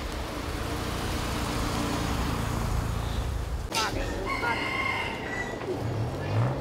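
A rooster crowing once, a drawn-out call of a little over a second about four seconds in, over a steady rushing noise.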